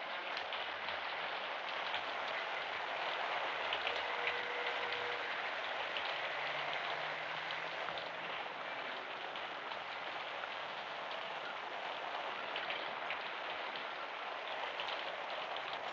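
Steady rain falling: an even hiss with scattered small drips.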